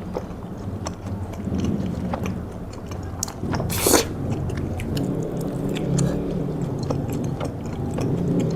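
Close-up chewing of takoyaki, with scattered wet mouth clicks and one louder noisy mouth sound about four seconds in, over a steady low hum.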